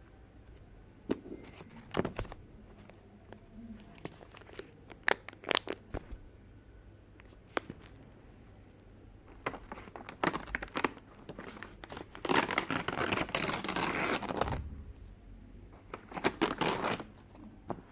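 Paper wrapping of a handmade advent calendar being torn open and crumpled. Scattered crinkles and sharp crackles come first, then a longer, louder tearing rustle about twelve seconds in, and another short burst near the end.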